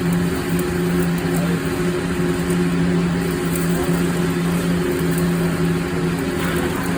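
Welding machine humming steadily under an even crackling hiss from the welding arc, the hum dropping out briefly a few times.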